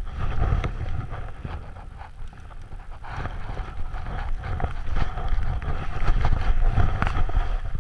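Wind rumbling over the microphone of a camera carried by a rider descending fast through deep powder snow, with the hiss of snow sliding under the rider. It grows louder after about three seconds.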